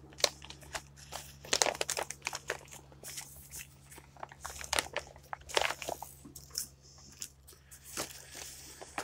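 Irregular small crinkles and clicks close to the microphone, with a faint steady hum underneath.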